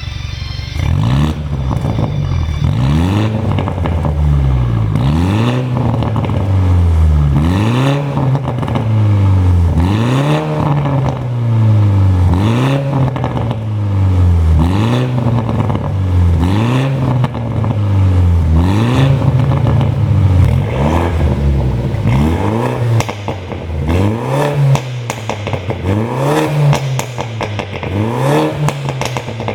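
BMW 420i Gran Coupe's turbocharged 2.0-litre four-cylinder revved again and again, about every second and a half. On each throttle lift the exhaust pops and crackles, the pop-and-crackle sound of a pop-and-bang engine tune.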